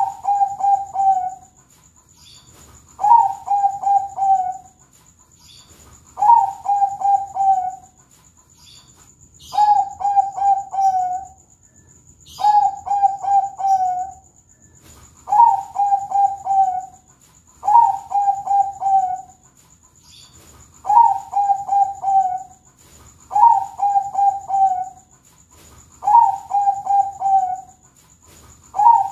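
Zebra dove (Thai-bred 'perkutut bangkok') cooing. Each phrase opens on a higher note and runs into a quick string of lower notes. The phrase repeats about every two and a half to three seconds, around eleven times, over a faint steady high-pitched tone.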